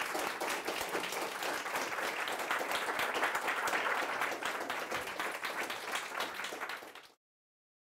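Audience applauding, a dense patter of many hands clapping, cut off suddenly about seven seconds in.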